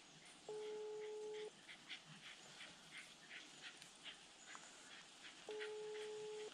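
Two steady one-second electronic beeps, about five seconds apart, over a faint, quick, distant yapping of a hunting terrier working out of sight.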